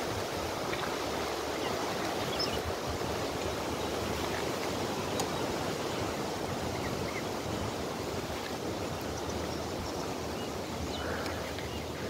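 Strong wind: a steady rushing noise blowing over the microphone.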